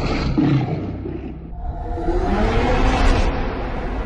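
A loud, deep roar that rises in pitch for about a second and a half near the middle, over a heavy low rumble.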